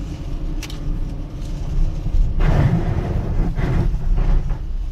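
Car driving on a wet road: a steady low rumble of the tyres and engine, with a splashing hiss as the wheels run through puddles of water standing in the ruts, about halfway through and again a second later.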